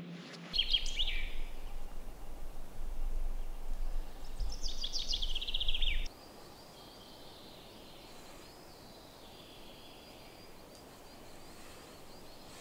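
Small songbirds calling: a few short chirps near the start and a fast descending trill about five seconds in, over a low, fluctuating rumble. About six seconds in the rumble and birds cut off, leaving only a faint outdoor hush.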